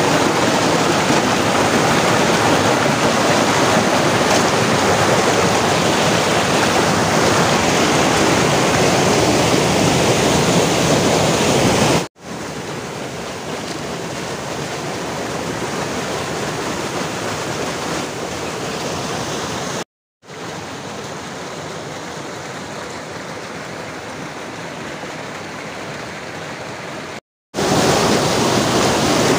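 Rushing water of a rocky forest stream pouring over a small cascade, a steady dense rush. It is louder for the first dozen seconds, then softer, and cuts out abruptly for a moment about 12, 20 and 27 seconds in.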